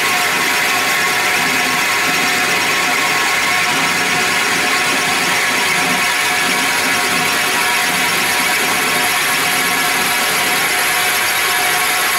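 Metal lathe running, with a carbide-insert tool taking a steady turning cut along a small round metal bar. The motor, drive and cut make one even, unbroken sound.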